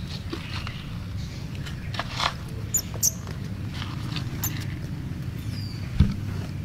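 Baby macaque making small squeaks and clicks while sucking at a milk bottle, over a steady low rumble. A thump about six seconds in is the loudest sound.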